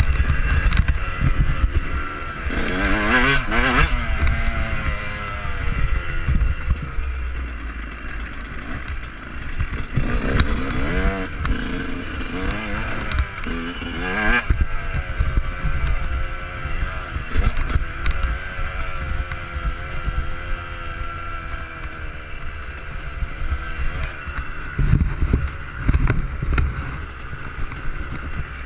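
Yamaha YZ125 two-stroke motocross engine revving up and down as it is ridden, its pitch climbing and dropping again and again through the throttle and gear changes, with a heavy wind rumble on the camera and a few sharp knocks.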